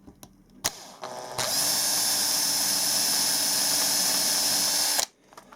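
Electric drill with a 2mm bit drilling out the bearing holes in a white metal bogie. It starts with a click about half a second in, speeds up, runs at a steady whine for about three and a half seconds and cuts off suddenly near the end.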